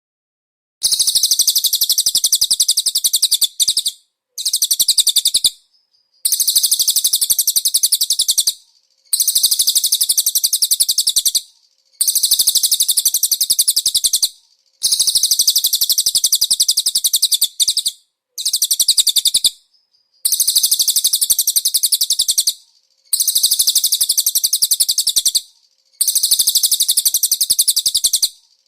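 Cililin, a small songbird, singing a series of very high, rapid trills: about ten phrases of one to three seconds each, separated by short pauses, starting about a second in.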